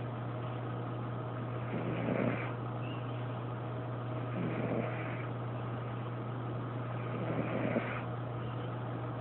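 Domestic cat snoring: a rasping, sawing snore about every two and a half seconds, three in all, over a steady low hum.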